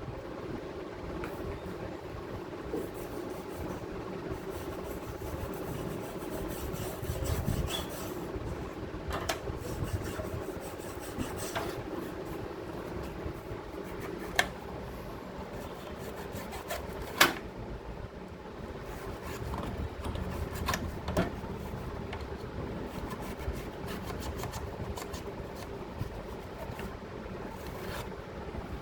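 Rubbing and scraping on the parts of an opened desktop computer, over a steady hum, with a few sharp clicks and knocks, two of them louder in the second half.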